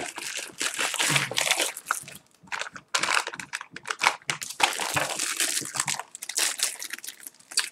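Plastic packaging crinkling and rustling as a plastic mailer parcel is opened and a clear-plastic-wrapped item is pulled out and handled, with a brief pause about two seconds in.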